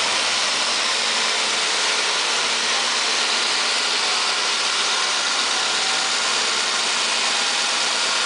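Supercharged Porsche 944 S2 3.0-litre four-cylinder idling on a chassis dynamometer after a power run. Its sound sits under a loud, steady rushing noise.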